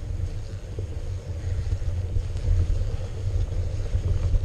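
Low, uneven rumble of a GoPro riding along on a mountain bike over a snowy trail: wind buffeting the microphone and the bike's tyres and frame shaking over the ground.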